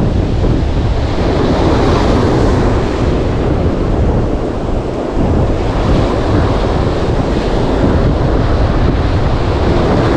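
Surf breaking and washing up the beach at close range, with strong wind buffeting the microphone.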